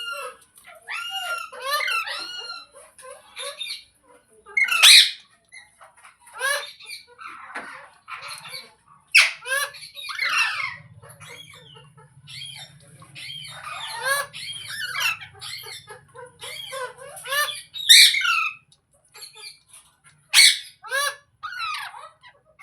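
Pet parrot squawking and chattering: a steady run of short calls broken by several loud screeches.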